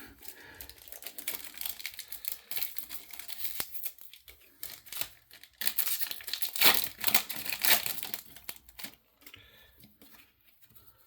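Foil booster pack of Pokémon cards being torn open and crinkled in the hands, a dense crackling that is loudest about two thirds of the way through and dies down near the end.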